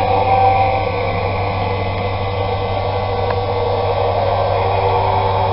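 Steady hiss over a constant low hum, with one faint tick about three seconds in.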